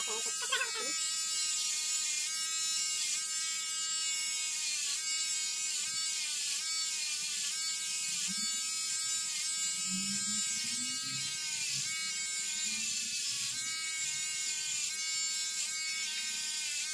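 Electric shaver running steadily as it is drawn over a shaved scalp. Its whirring hum dips briefly in pitch every second or two as the head is pressed against the skin.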